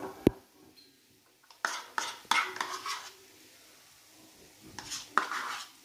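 Steel spoon scraping and clinking against a small stainless-steel pot while stirring ghee, in a few short scrapes about two seconds in and again near the end. A single sharp click comes just after the start.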